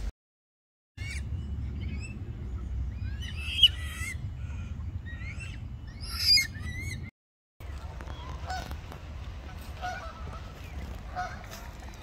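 Goose honking, a short call about every second and a half, over a low background rumble. Before that come higher, gliding bird calls with two louder sharp calls.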